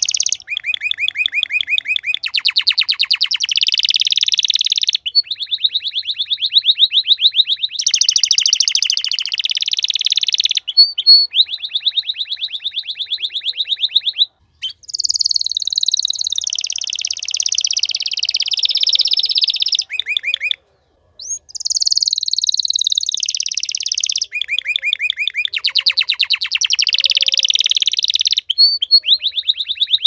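Male domestic canary singing: long runs of rapid trills, switching every few seconds from one repeated note to another. The song breaks off briefly about halfway and again for about a second around two-thirds of the way through.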